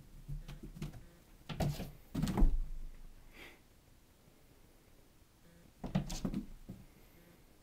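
A cat jumping at the wall and landing on carpeted stairs: dull thumps in two bursts, about one and a half to two and a half seconds in and again around six seconds in.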